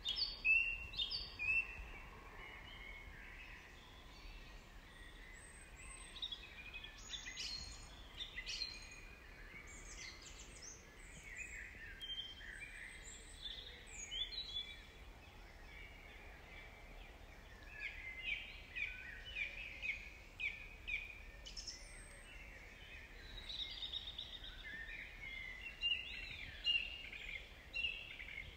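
Birds singing and calling: many short chirps and trills from several birds, scattered throughout, over a faint steady hiss.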